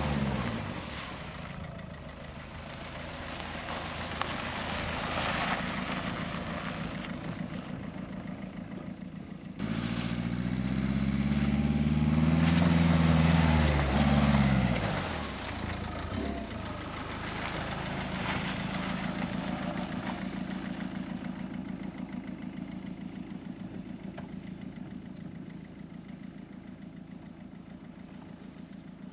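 Motor vehicle engine running steadily, with a spell of revving about a third of the way in where it grows louder and rises in pitch, then drops back.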